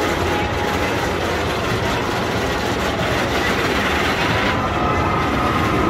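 Wildcat's Revenge roller coaster train running on its steel track, a steady rumble of wheels with a faint whine over it.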